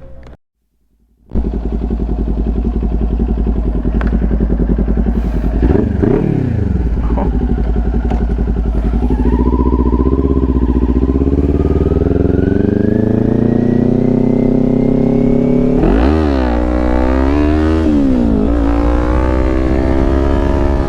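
Kawasaki Ninja 400 parallel-twin engine running through a LeoVince slip-on exhaust. It idles, is blipped once about five seconds in, its idle climbs slowly, and then it is revved up and down about three times near the end. The sound cuts in after a moment of silence near the start.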